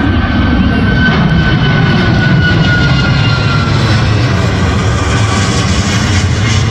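Southwest Boeing 737 jet airliner passing overhead: a loud, steady jet-engine rumble with a high whine that slowly falls in pitch as the plane goes by.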